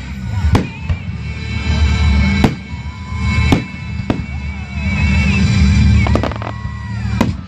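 Aerial fireworks shells bursting: about five sharp bangs a second or two apart, with music playing underneath.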